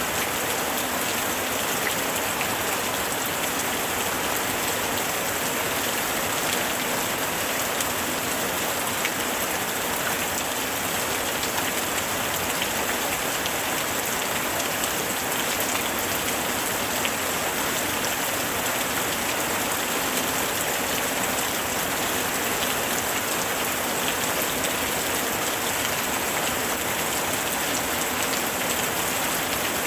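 Steady rain falling, a dense, even hiss with many small drops pattering on a surface.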